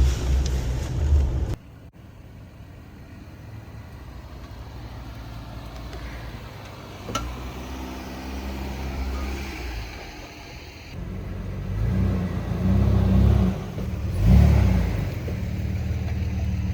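Jeep engines running and revving at trail speed, in a few cut-together shots: loud at first, much quieter from under two seconds in, then louder again with the engine revving up and down from about eleven seconds in.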